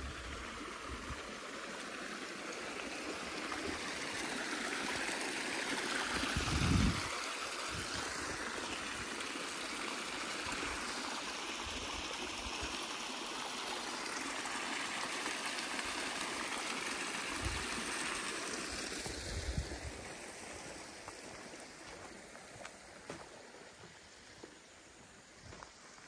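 A shallow river running low, its water streaming and trickling over the bed in a steady rush that fades away after about twenty seconds. A brief low bump about seven seconds in.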